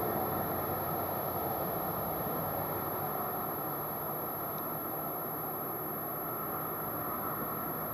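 Steady low rumbling noise with no distinct events, slowly easing in level.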